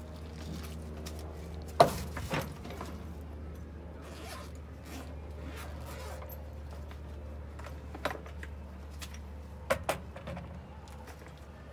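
A softball equipment backpack being handled on a wooden dugout bench. A sharp knock comes about two seconds in as the heavy bag is set down, then zipper and rustling sounds as it is opened. Near the end, two quick knocks come as a hard batting helmet is taken out and set on the bench.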